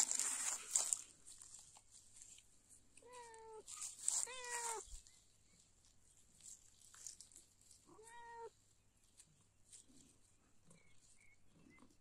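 Calico cat meowing three times, short calls about three, four and eight seconds in, the middle one the longest. A burst of rustling noise comes at the very start.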